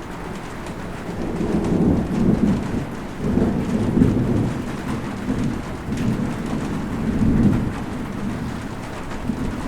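Steady rain with rolling thunder: a deep rumble swells about a second in and rolls on in several waves over the hiss of the rain.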